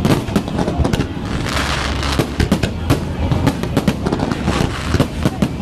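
Aerial fireworks going off in quick succession: many sharp bangs, with a crackling shower about one and a half to two seconds in.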